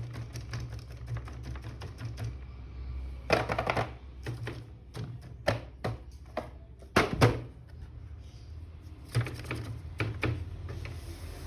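Plastic clicking and rattling as action-figure packaging and toy parts are handled: a run of fine ticks at first, then several louder bursts of clicks. A steady low hum runs underneath.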